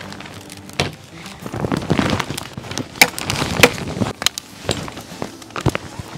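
Wood fire crackling and popping in a perforated metal fire barrel as it is stoked with more wood, with a run of sharp cracks, the loudest about three and three and a half seconds in.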